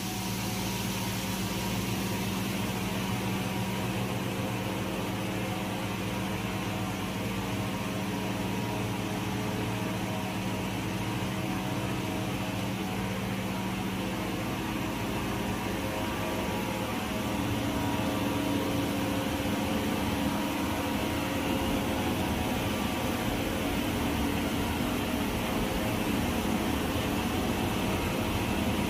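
Circular knitting machine for mink blanket and faux-fur carpet fabric running at speed: a steady mechanical whirr and hum, a little louder from just past halfway.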